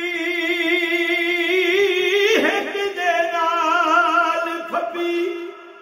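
A man singing Punjabi kalam without instruments, drawing out long wavering notes between the words of a verse. He breaks briefly about two and a half seconds in and again near five seconds, and the voice fades near the end.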